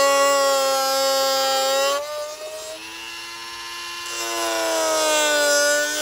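Handheld rotary tool with a diamond cutting wheel grinding through the black plastic housing of a Keurig coffee maker: a steady high motor whine over a gritty grinding hiss. About two seconds in the wheel eases off the plastic, so the sound drops and its pitch rises slightly as the motor spins up unloaded. A little after four seconds it bites into the plastic again.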